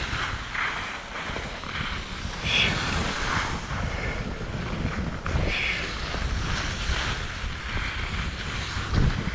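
Wind buffeting the microphone in a steady low rumble, with short hissing sounds every second or so.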